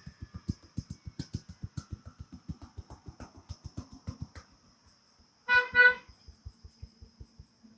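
Rapid rhythmic tapping of a barber's hands on a customer's head, about seven strokes a second, fading after about four and a half seconds. About five and a half seconds in, a vehicle horn gives two short beeps.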